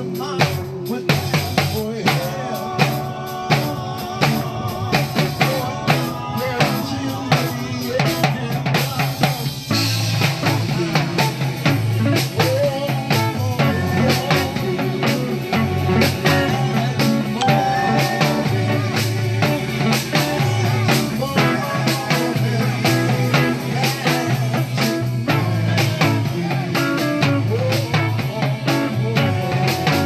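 Live band music with timbales struck in quick, sharp stick hits over drums and bass; the bass line becomes fuller about a third of the way in.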